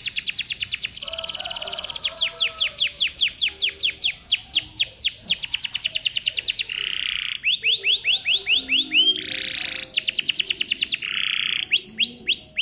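Domestic canary in full, continuous song: a run of fast trills, each lasting a second or so before switching to the next. Some trills are made of quick downward-sweeping notes, with short buzzy phrases in between.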